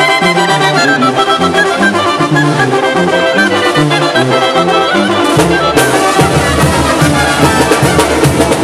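Live brass band playing dance music close by, with a tuba carrying a stepping bass line under trumpets. About five and a half seconds in, the low notes grow fuller and the sound gets brighter.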